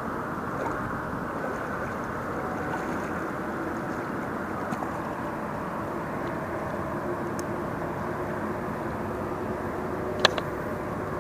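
Steady rumble of road traffic from a highway bridge over the river, with one sharp click about ten seconds in.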